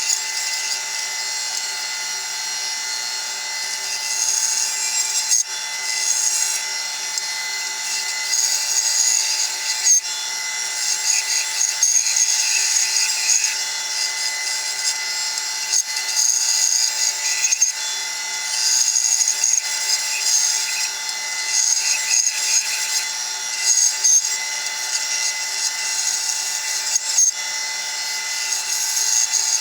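Bandsaw running with a steady whine while its blade cuts wood, the cutting hiss swelling and easing as the workpiece is fed through.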